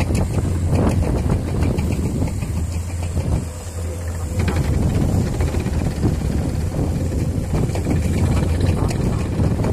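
Excavator's diesel engine running with a steady low drone as it loads rock into a dump truck, with scattered knocks throughout; the engine eases briefly about three and a half seconds in.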